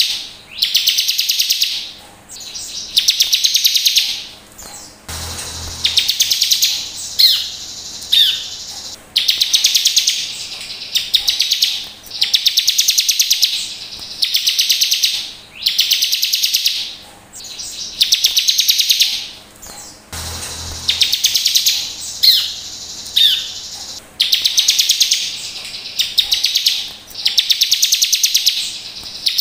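Bar-winged prinia (ciblek) singing: rapid buzzy trills about a second long, repeated every two seconds or so, with a few sharp falling whistled notes between them.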